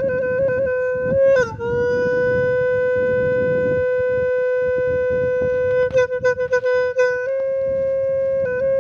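A solo wind instrument with a reedy tone playing mostly long held notes around one pitch, with small steps up and down and a run of quick trills about two-thirds of the way through.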